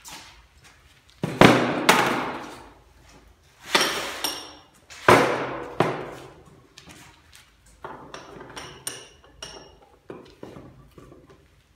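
Hammer blows on oak: several hard strikes, some with a short metallic ring, then a run of lighter, quicker taps in the second half.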